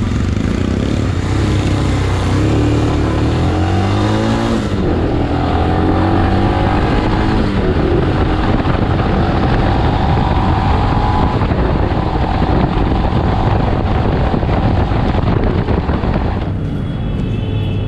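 Royal Enfield Himalayan's single-cylinder engine pulling away, its pitch climbing in the first few seconds, then running at cruising speed under heavy wind rush over the microphone. The wind noise drops off abruptly near the end.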